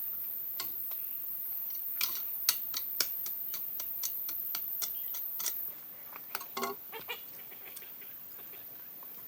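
A run of sharp taps or clicks, about two to three a second, then a few softer knocks, over a faint steady hiss.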